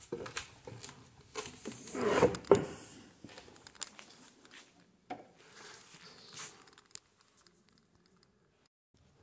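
Irregular crunching, scraping and clicking of footsteps over debris on the floor, loudest about two seconds in, then thinning out to a few scattered clicks.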